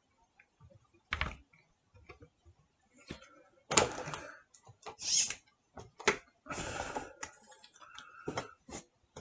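Irregular knocks, clicks and rustling from objects being handled, the loudest knock about four seconds in, with a brief squeak near the end.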